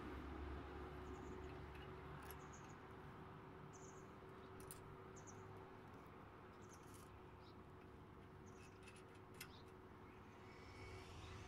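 Near silence: faint outdoor background with a thin steady hum and a few short, faint high-pitched chirps scattered through.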